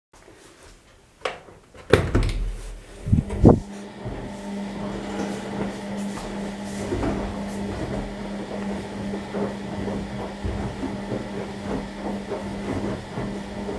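Bauknecht WA 9350 washing machine: a few sharp knocks, then a steady low hum over an even hiss with small irregular rattles.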